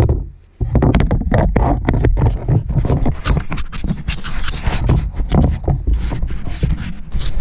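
Continuous scraping, rubbing and knocking from the camera being moved over a concrete floor, with a heavy low rumble. This is handling noise on the camera's own microphone.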